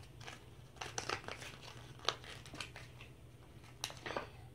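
A small folded packet crinkling as it is handled and unfolded in the hands: irregular crackles and rustles.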